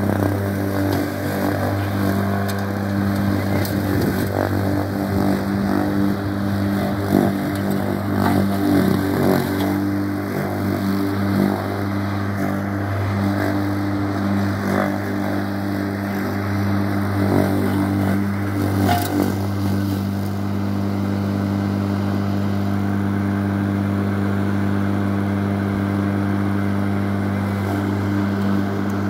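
A 5 hp lawn mower engine running steadily at constant speed. Irregular rattling and crackling sits over it for roughly the first twenty seconds, after which it runs evenly.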